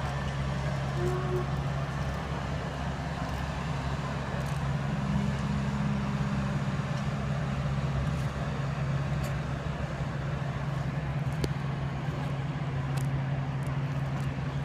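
Steady low engine hum with a constant drone, over general outdoor noise.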